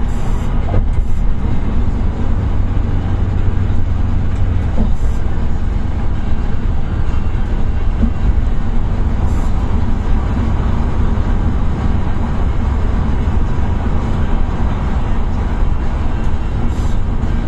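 Steady engine and road rumble inside the cabin of a large vehicle cruising on a motorway.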